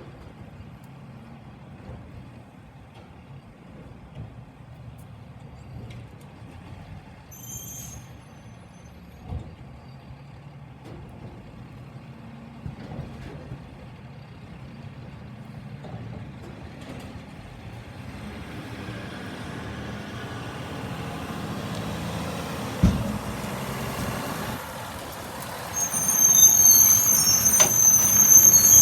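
Garbage truck's diesel engine running and growing louder as it approaches, with a single knock most of the way through. Near the end a high-pitched brake squeal lasts about three seconds as the truck stops.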